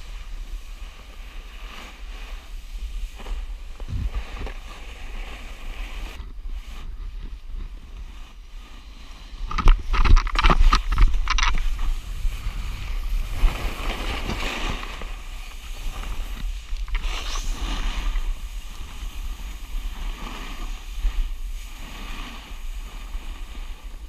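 Wind rumbling on the microphone, with the scrape of snowboards sliding on snow swelling and fading several times; the loudest stretch, about ten seconds in, is a quick run of sharp scrapes.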